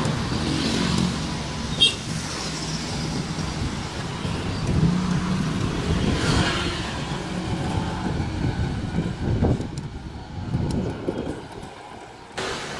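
Road traffic on a town street: motorbike and car engines passing, swelling and fading, heard from a moving bicycle, with one sharp click about two seconds in.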